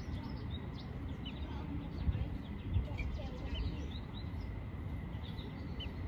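Scattered short, high chirps from birds over a steady low rumble, with two soft knocks about two and three seconds in.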